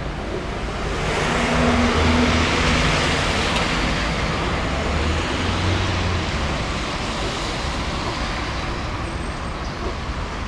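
A road vehicle passing close by: engine and tyre noise swell about a second in, are loudest around two seconds, then slowly fade away.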